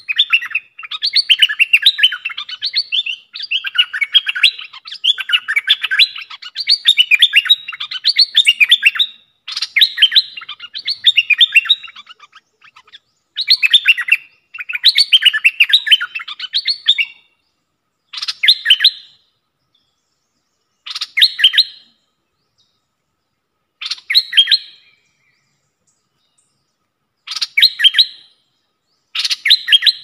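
A caged decoy bulbul (merbah) singing: dense runs of quick, sharp chirping phrases for about the first 17 seconds, then short one-second phrases about every three seconds.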